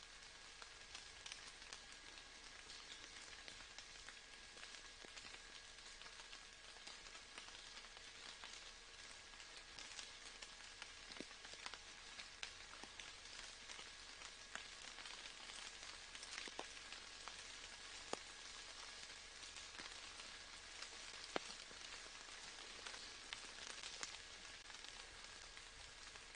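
Faint steady rain falling, an even patter with individual drops ticking through it.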